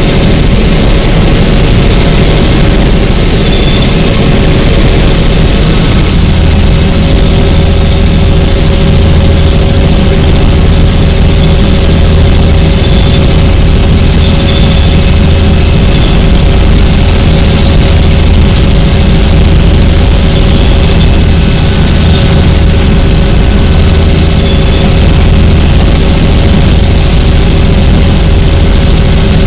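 Helicopter in flight: a loud, steady turbine whine with a constant drone from the engine and rotors.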